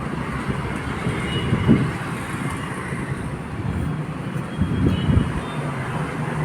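Steady low rumble of outdoor background noise, like road traffic, with a couple of brief louder low swells, one near two seconds in and another around five seconds in.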